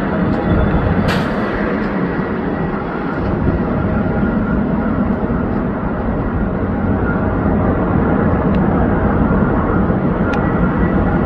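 Airbus A300 freighter's jet engines and rushing air as it comes in to land: a steady noise that grows slightly louder partway through, with a brief click about a second in.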